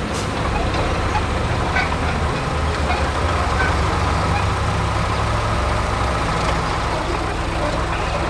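Engine of a heavy construction vehicle running steadily, a low rumble under a wash of noise.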